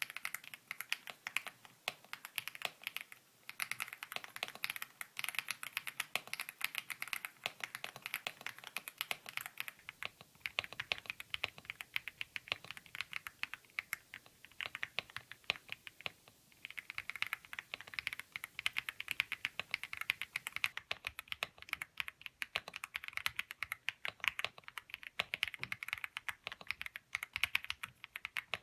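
Fast, continuous typing on a custom keyboard: a dense run of quick key clicks, with short pauses about 3 seconds in and about 16 seconds in.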